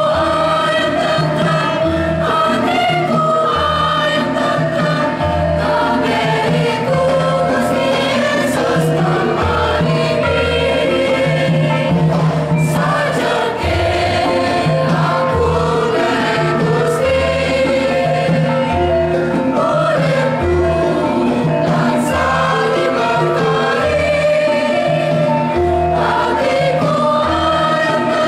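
Youth choir singing a Javanese hymn with Javanese gamelan accompaniment, deep low notes sounding every second or two under the voices.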